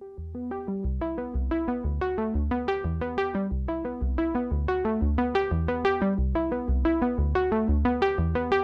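Background music: short, quickly repeated melodic notes over a steady pulsing bass beat.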